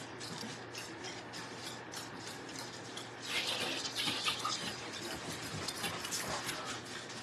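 Quiet wet handling sounds of raw chicken pieces being dipped in egg wash and rolled in a Parmesan seasoning mix: soft squishing and rubbing with light taps against the bowls, louder for about a second around three and a half seconds in.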